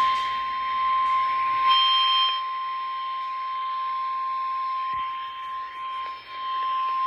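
Single steady 1050 Hz weather-radio warning alarm tone over radio hiss, the attention signal for a National Weather Service severe thunderstorm warning.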